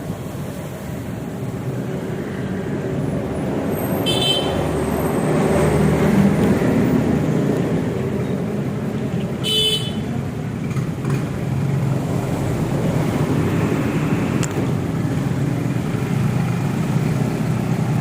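Motorcycle engine running and building up over the first few seconds, with two short horn toots about four and nine and a half seconds in.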